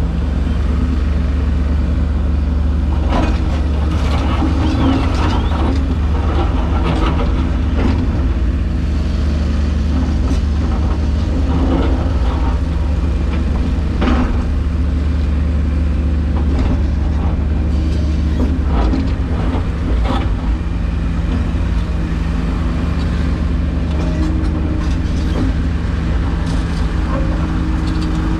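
Excavator's diesel engine running steadily under working load, heard from inside the cab, with scattered clunks and scrapes of the bucket digging into dirt and rock.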